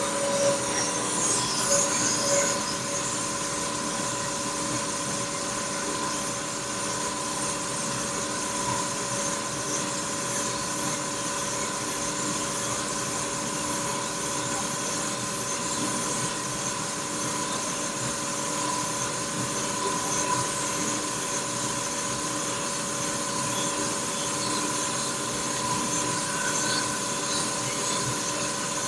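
Crankshaft grinding machine grinding the main journals of an S44 engine crankshaft to first undersize: a steady machine whine with several held tones over a hiss.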